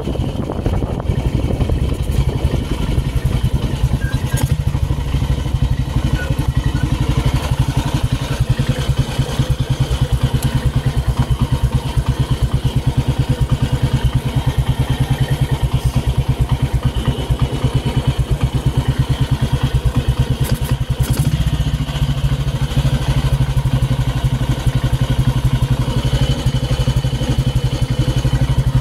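Motorcycle engine running at low revs with a steady, even beat, the bike slowed to a stop.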